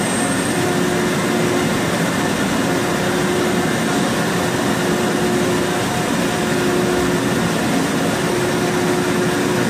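Citizen A20VII CNC Swiss lathe running: a steady mechanical hum and hiss with a faint, level whine running through it.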